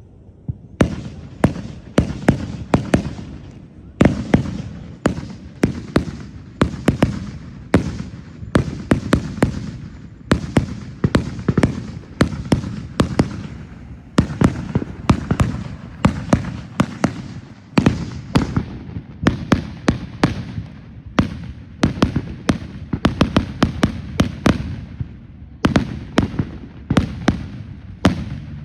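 Fireworks going off in a rapid barrage: sharp, irregular bangs several a second, each trailing off in a short echo, starting about a second in.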